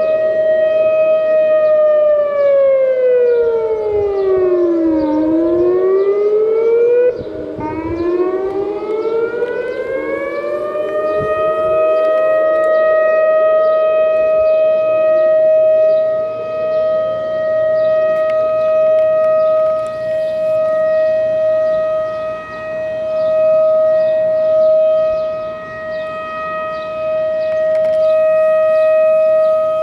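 Civil defence outdoor warning sirens sounding during a test of the emergency alert system. They hold a long steady tone that glides down in pitch and back up, with overlapping glides from more than one siren, between about two and eleven seconds in, then settle on the steady tone again.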